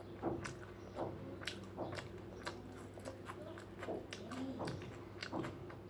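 A person chewing food close to the microphone, with wet mouth smacks about twice a second. A steady low hum runs underneath.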